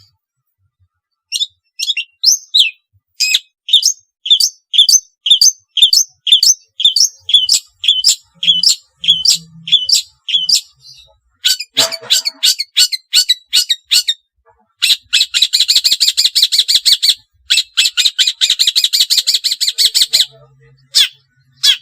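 Long-tailed shrike (cendet) singing: a long run of sharp, downward-slurred high notes, about two a second. Past the middle it breaks into a fast, harsh chattering rattle lasting several seconds, then gives a few single notes again.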